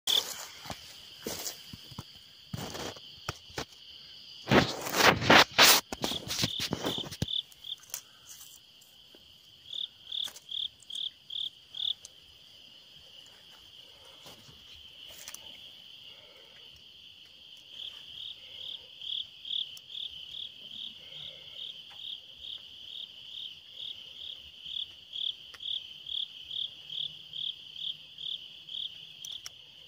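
Night insects, crickets, chirping in a steady high-pitched pulse of about three chirps a second. Loud rustling bumps fill the first seven seconds.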